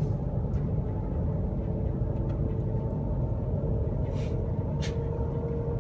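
Cabin noise inside the Shanghai maglev train accelerating at around 130 km/h: a steady low rumble with a faint, even hum above it.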